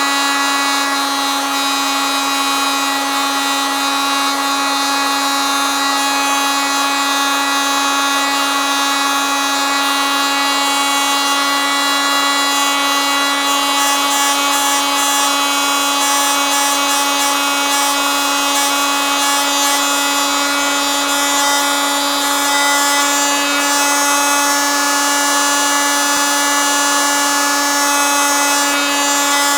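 Oscillating multitool running steadily, a constant high-pitched buzz that holds one even pitch.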